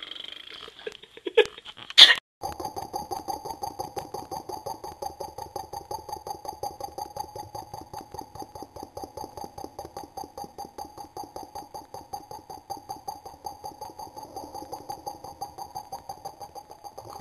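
A boy making a weird vocal noise with his lips closed: a long, rapid, even pulsing at about five beats a second over a steady pitch. It comes after two short, loud sharp sounds about a second and a half and two seconds in.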